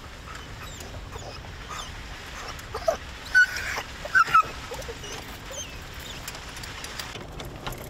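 Hunting hounds whining and giving short yelps, with two louder yelps about three and a half and four and a half seconds in, over wind on the microphone.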